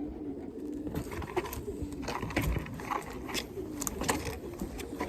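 Racing pigeons cooing, low short coos repeating, with scattered clicks and scuffs.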